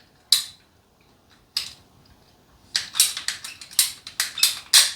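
A series of sharp clicks and knocks from a piece of PVC pipe being handled: single ones at first, then a quick run of several a second in the second half.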